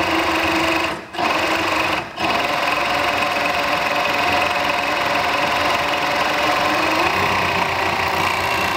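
Industrial four-thread overlock machine (serger) running at speed, overcasting a fabric edge. It stops briefly twice, about one and two seconds in, then runs steadily.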